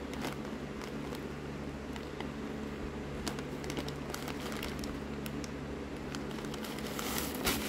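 Clear plastic bag of small plastic beads being handled, with faint crinkles of the bag and soft clicks of beads shifting inside, and a louder crinkle near the end. A steady low hum runs underneath.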